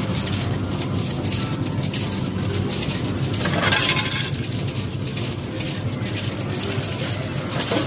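2p coins clinking and dropping in an arcade coin pusher machine, with a louder clatter of coins about three and a half seconds in, over the steady din of arcade machines.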